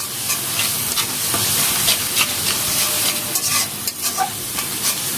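Onion and spice masala sizzling in hot oil in a pan while a spatula stirs and scrapes through it, with irregular scrapes over a steady frying hiss. The masala is being fried down (kosha) until well cooked.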